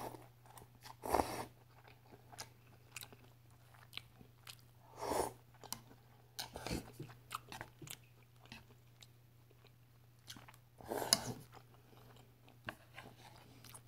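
Close-miked mouth sounds of a person eating ramen noodles with chopsticks: wet chewing and small smacks, broken by a few louder slurps, about a second in, about five seconds in and near the end.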